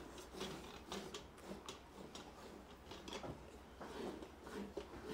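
Hand-milking a Gir cow: milk squirting in short, rhythmic spurts into a steel bucket already part full of frothy milk, about two strokes a second.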